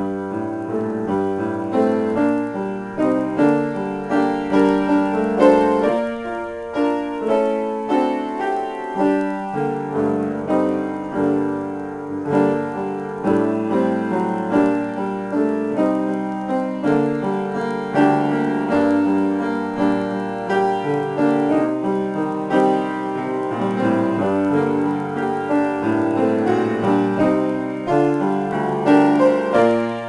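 Solo upright piano being improvised on, with a continuous flow of chords and melody notes and frequent new notes struck over the sustained ones.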